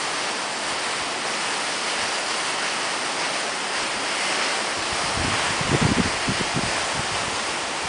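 Steady outdoor rushing noise, with wind buffeting the microphone in low rumbling gusts between about five and seven seconds in.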